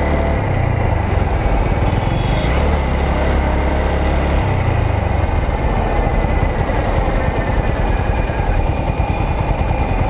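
Motorcycle engine running at road speed, heard over heavy wind rumble on the rider's helmet microphone. The engine note shifts twice, about half a second and four and a half seconds in.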